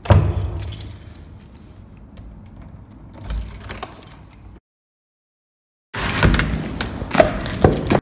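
Handling noise from a handheld phone: a knock, then rustling and small jingling clinks, broken by about a second and a half of dead silence halfway through, after which the rustling and clinks come back louder.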